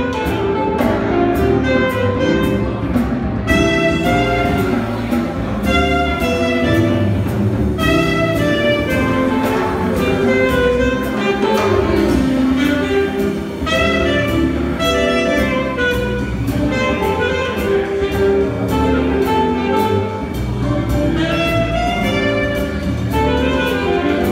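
A small jazz band playing live: a saxophone melody over keyboard, upright bass and a drum kit, with a steady cymbal beat.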